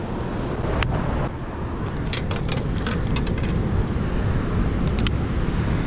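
Steady wind rumble on the microphone mixed with ocean surf, with a run of light clicks and taps from about two to five seconds in.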